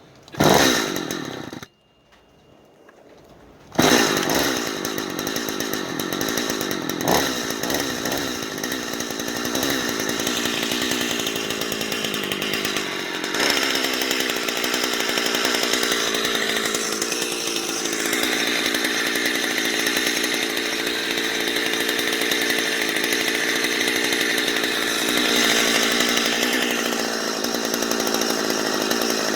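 Small two-stroke engine runs for a moment and dies, then starts again about four seconds in and keeps running steadily, its speed shifting a little now and then.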